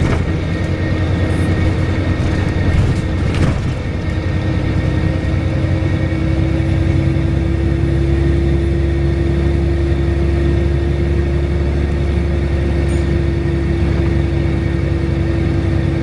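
Volvo B7RLE single-deck bus under way, heard from inside the saloon: the diesel engine's steady rumble, with a steady droning tone that grows stronger about six seconds in. A single click comes about three and a half seconds in.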